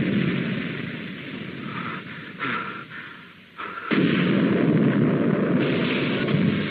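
Sound effects of an Eagle spacecraft crash-landing. A loud, noisy rumble fades away over the first three and a half seconds, then a sudden explosion about four seconds in stays loud to the end.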